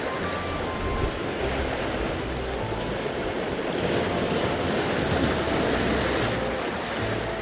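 Sea waves washing steadily at the shore, with wind buffeting the microphone.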